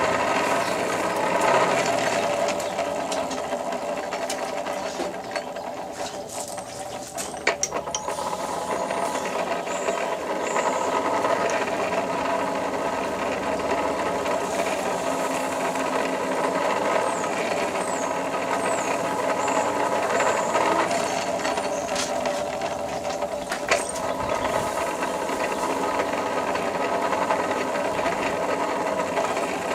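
Coal forge blower running steadily, driving air into a freshly lit fire, with a few sharp clicks about seven seconds in. It eases off briefly in the first few seconds, then picks up again.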